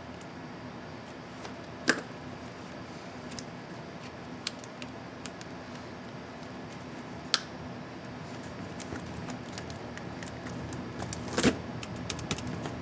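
Small plastic clicks and taps from handling a laptop keycap and its clips, with three sharper snaps standing out, over a steady low hum.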